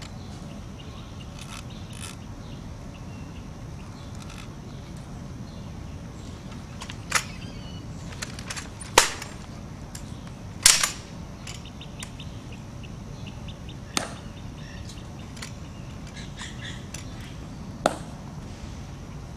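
Crisp cracks and clicks of a ceremonial rifle being handled during an honor guard rifle inspection: five sharp reports a few seconds apart, with fainter clicks between them.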